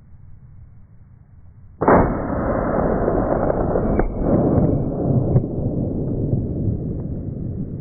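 A 12-gauge Mossberg 500 pump shotgun fires a Quik-Shok sabot slug about two seconds in: a sudden muffled boom followed by a long low rumble that dies away over about five seconds.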